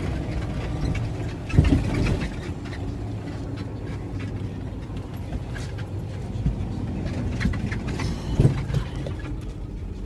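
Heavy truck's engine and road noise rumbling steadily, heard from inside the cab, with a thump about a second and a half in and another near the end.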